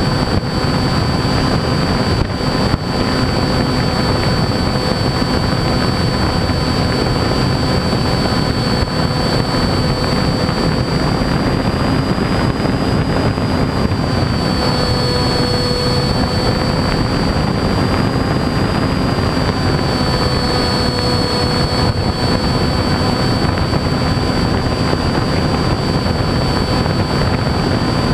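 Radio-controlled model airplane in flight, heard from its onboard camera: the motor and propeller run steadily with a high whine that shifts slightly up and down in pitch a few times, over a constant rush of air.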